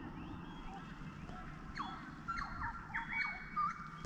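Birds calling: short rising chirps at first, then several louder whistled notes from about two seconds in, over a low steady rumble.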